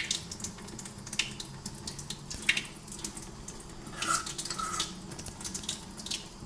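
A spoon stirring soup with floating dumplings in a stainless-steel pot: soft wet stirring sounds with a few sharp metal clinks, over a faint hiss of the heating liquid.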